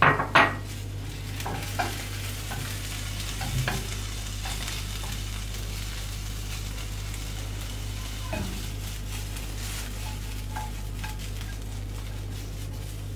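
Sliced mushrooms and bell peppers sizzling in olive oil in a frying pan, stirred with a wooden spatula that knocks and scrapes against the pan. A couple of sharper clacks at the very start, then a steady sizzle with scattered light knocks.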